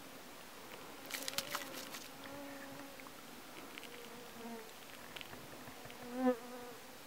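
A flying insect buzzing near the microphone, its wingbeat hum wavering in pitch, coming and going, and swelling loudest as it passes close about six seconds in. A short run of light clicks about a second in.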